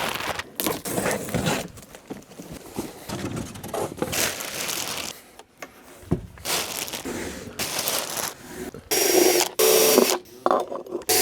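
Handling clatter and knocks while a speaker bracket is mounted on the wall, then a cordless drill running in two short bursts near the end, driving in the bracket's fixing screws.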